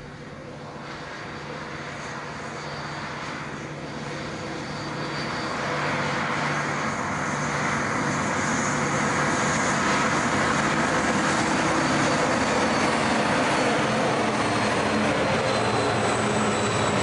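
Three SCT class EMD diesel-electric locomotives, with two-stroke V16 engines, approaching and passing under power: a steady engine drone that grows louder over the first six seconds, then holds as the locomotives go by close.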